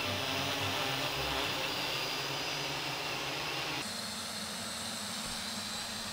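A flock of quadcopter drones hovering, their propellers whirring steadily with a high whine over it; the sound changes abruptly about four seconds in.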